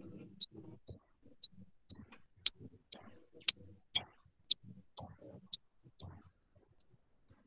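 Steady ticking, about two sharp ticks a second, typical of a clock, over faint low background noise; the ticks fade near the end.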